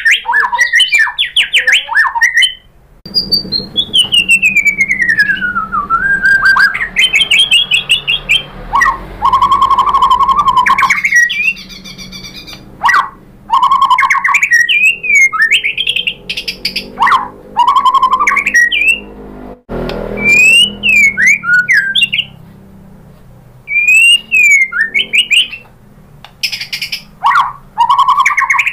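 Caged white-rumped shama (murai batu) in full, loud song: a varied run of whistled phrases, fast trills and sharp chips with short pauses between them. A long falling-then-rising whistle comes a few seconds in, and short rising-and-falling phrases repeat later on.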